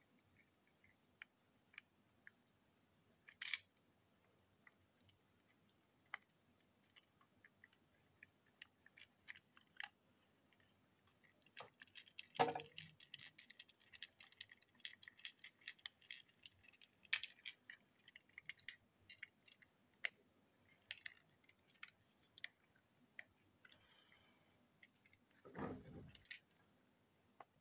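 Scattered small clicks and taps of a screwdriver against the plastic parts of a TrackMaster toy engine being worked on by hand, with a busier run of clicking in the middle. A couple of duller handling bumps come around the middle and near the end.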